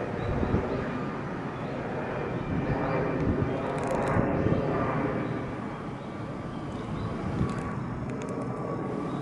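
Steady outdoor background rumble with a broad hiss, swelling slightly a few seconds in.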